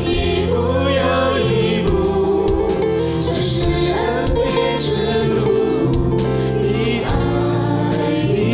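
A worship song sung in Cantonese by a male lead voice over keyboard accompaniment with acoustic guitar.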